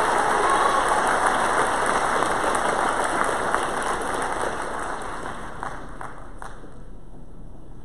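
Audience applauding in a large hall, the clapping dying away over about six seconds.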